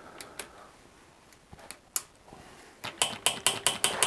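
Bicycle rear-hub freewheel ticking: a few light clicks, then from about three seconds in a steady run of ticks, about six a second, as the freshly refitted rear wheel of a Trek 7000 hybrid turns.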